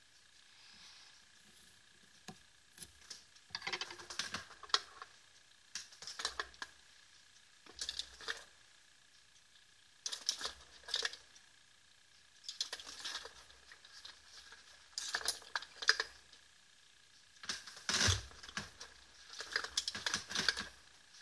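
Bursts of rapid light clicks and taps, each lasting about a second, coming every couple of seconds, with a faint steady high tone underneath.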